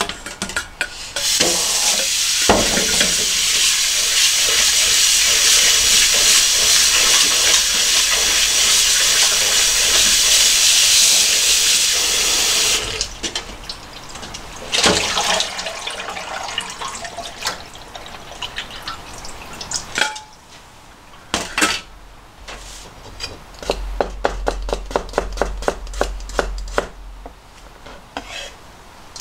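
Kitchen tap running hard into a stainless-steel sink for about ten seconds, then stops, followed by a colander and bowls clattering. Near the end, a Japanese vegetable knife slicing a carrot on a plastic cutting board, about four cuts a second.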